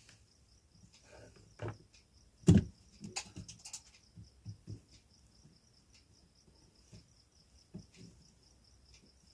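Scattered light clicks and knocks of hand tools on a circuit board as a capacitor is desoldered and pulled out, the loudest knock about two and a half seconds in. A faint, evenly pulsing high chirp runs underneath.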